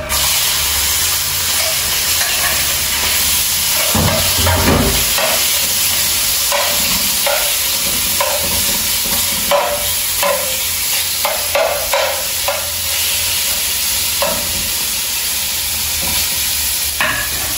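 Raw shrimp hitting hot oil in a frying pan start sizzling all at once, and the frying hiss runs on steadily. A spatula scrapes and taps against the pan again and again as the shrimp are stirred.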